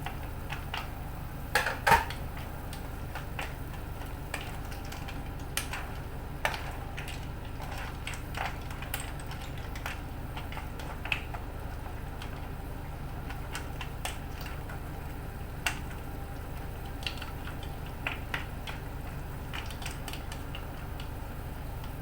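Kitchen utensil clinking and scraping against a cooking pot of clams, scattered clicks with the loudest pair about two seconds in, over a steady low hum.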